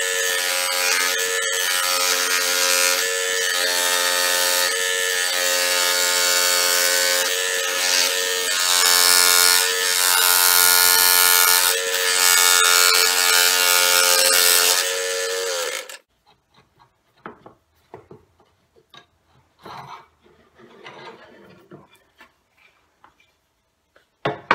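Scroll saw running with a steady buzz as its reciprocating blade cuts through a wooden board, switched off about two-thirds of the way in. A few faint knocks and taps follow.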